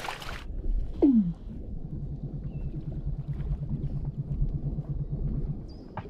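Weddell seal calling underwater: one loud falling call about a second in, then a fast, low pulsed trill of about ten pulses a second lasting some four seconds.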